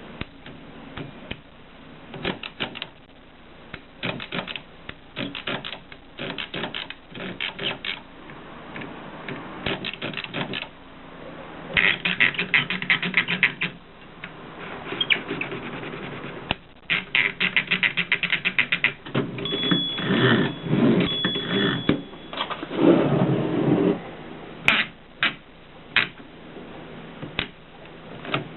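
Mercedes 6 typewriter being typed on: runs of rapid key strikes broken by short pauses, with a longer, louder stretch of sound near the end.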